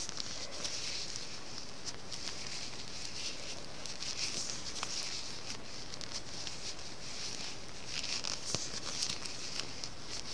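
Circular knitting needles ticking lightly against each other, with soft scratchy rustling of wool yarn as stitches are bound off one by one.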